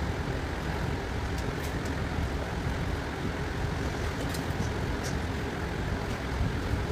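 Steady low rumbling background noise with no speech, with a few faint ticks scattered through it.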